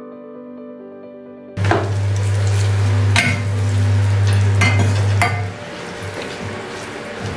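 Soft background music, then, about a second and a half in, bay leaves in hot olive oil start sizzling in a stainless steel pan, with a metal spoon clinking against the pan now and then as they are stirred. A low steady hum runs under the sizzling and stops a little after the middle.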